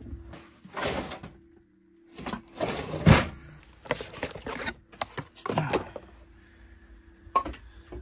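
Hands rummaging through papers and cardboard on a littered floor: rustling and handling noises with a few knocks, in short spells, the loudest about three seconds in.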